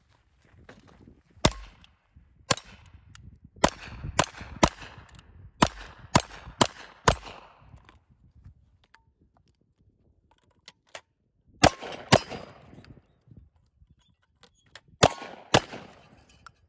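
A string of about nine quick gunshots at roughly half-second to one-second spacing, with steel targets ringing after the hits. After a pause come two pairs of louder shots, each pair about half a second apart, from a side-by-side double-barrel shotgun fired barrel after barrel.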